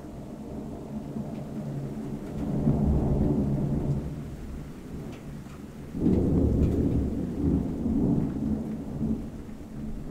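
Thunderstorm: low thunder rumbling over falling rain. It swells about two and a half seconds in, then a sudden louder peal about six seconds in rolls on for around three seconds.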